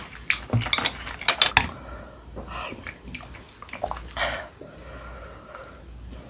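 Spoon and wooden chopsticks clinking against a glass soup bowl, a few quick clinks in the first couple of seconds, then softer sounds of chopsticks stirring and lifting noodles out of the broth.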